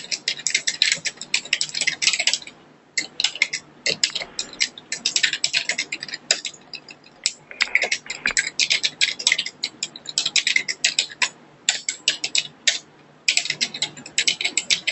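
Typing on a computer keyboard: fast runs of keystrokes with short pauses between them.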